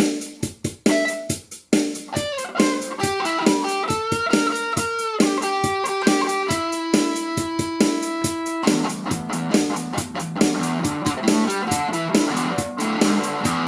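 Squier Telecaster electric guitar played through a Fender Champion 50XL amp: single-note lead lines with string bends about four seconds in, turning to fuller chordal playing past the middle, over a steady beat.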